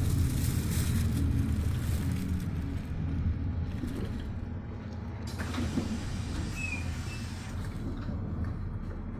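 Bus running: a steady low engine and road rumble that grows quieter over the first few seconds, with a few short rattles about halfway through.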